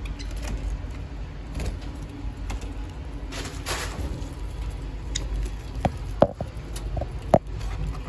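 Budgerigars moving about in a wire cage: a brief flutter of wings about three and a half seconds in, then a handful of sharp clicks and taps in the second half, over a steady low rumble.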